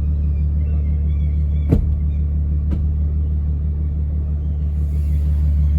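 Bentley Continental GT Speed's twin-turbo W12 engine idling with a steady low drone. A sharp click comes a little under two seconds in, and a fainter one a second later.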